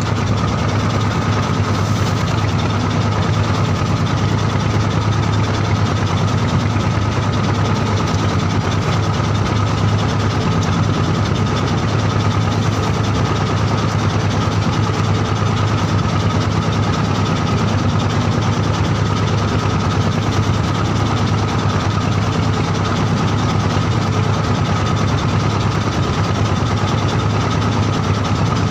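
Wooden fishing boat's engine running steadily: a constant low hum with a thin high whine over it.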